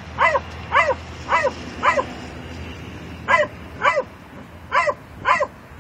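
Dog barking from inside a closed parked car: short, high barks about two a second, four in a row, a pause of about a second and a half, then four more.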